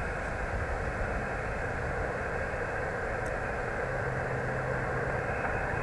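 Steady static hiss of the 20-metre band from a Yaesu FT-817's speaker on single-sideband receive, held to the voice range with nothing above it. A faint low hum joins about four seconds in.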